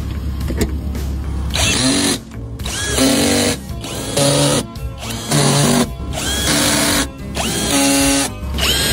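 A power drill or driver run in repeated short bursts, about a second each: each burst spins up with a quick rising whine, holds steady and stops.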